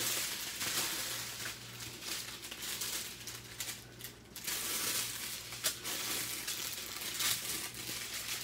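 Thin plastic crinkling and rustling as small bags of diamond painting drills are handled and shuffled, with a few sharp clicks.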